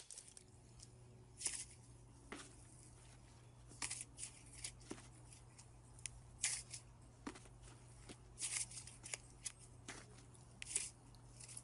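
Slime being poked and squeezed by fingers: irregular short crackling, popping squelches, about a dozen of them, faint.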